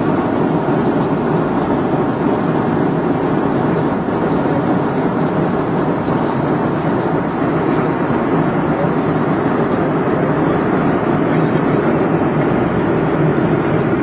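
Steady drone of a passenger airliner's cabin noise: engines and airflow, even and unbroken.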